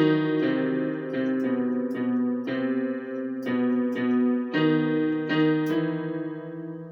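Electronic keyboard playing a slow original piece: notes and chords struck about once a second over sustained lower notes, the last chord held and dying away near the end.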